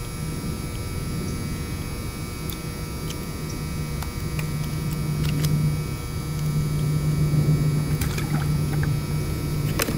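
Low, steady drone of a C-130 Hercules four-engine turboprop aircraft flying over, growing louder from about four seconds in. A few sharp clicks come near the end.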